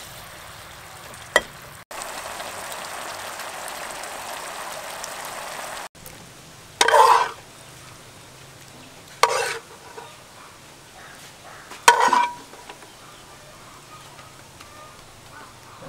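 Pork belly frying in sauce in a non-stick pan as it is stirred with a metal spoon, a steady sizzle for about four seconds. Then a spoon knocks and scrapes against a ceramic bowl three times, short and loud.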